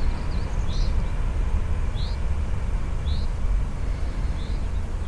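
A small bird chirping repeatedly, short high calls about once a second, over a loud, uneven low rumble.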